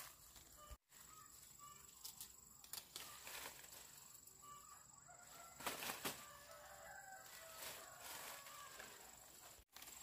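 Chickens clucking faintly, with a few brief rustles or wing flaps, the loudest a little past the middle.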